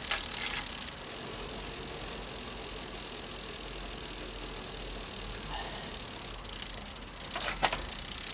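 Bicycle chain running over the chainrings and rear cogs as the cranks are turned by hand: a steady hiss from about a second in that fades out near the end, with a few ticks from the drivetrain near the start and the end.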